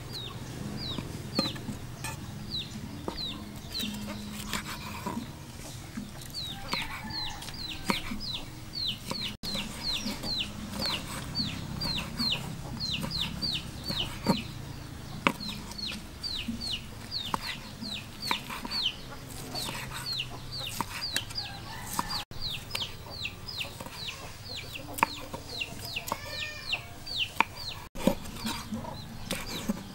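Chickens peeping, many short high chirps that fall in pitch, several a second, over sharp taps of a knife slicing meat on a wooden cutting board.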